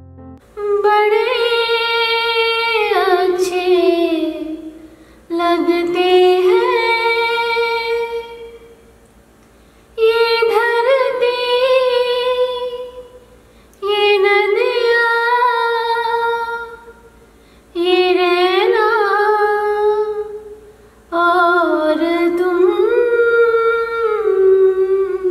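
A woman singing a slow melody unaccompanied into a handheld microphone, in six long drawn-out phrases separated by short pauses.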